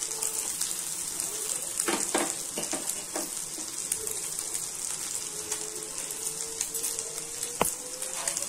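Chopped garlic and ginger sizzling in hot oil and butter in a nonstick frying pan, a steady hiss broken by a few sharp knocks, a couple about two seconds in and one near the end.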